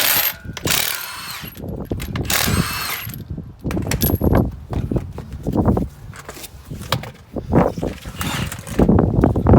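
Cordless impact wrench spinning lug nuts off a car's rear wheel in two bursts of about a second each, its whine rising and falling. Then clanking and knocking as parts are handled.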